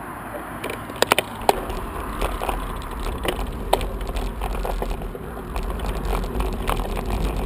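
Bicycle riding over rough road: steady tyre and wind noise on the microphone, with sharp rattling clicks from the bike and camera mount, the loudest a quick cluster about a second in. A low wind rumble comes up about a second and a half in.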